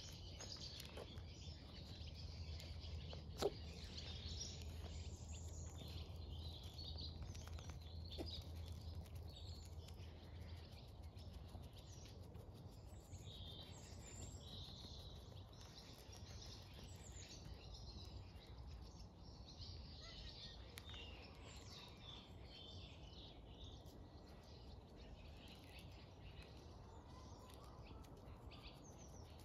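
Faint outdoor ambience with small birds chirping on and off, over a low steady hum that stops about a third of the way through. A single sharp click about three and a half seconds in.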